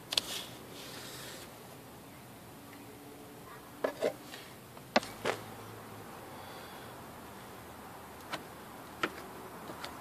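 Quiet handling noises from body-repair work with painter's tape and filler tools: a short rustle near the start, then a few scattered sharp clicks and taps.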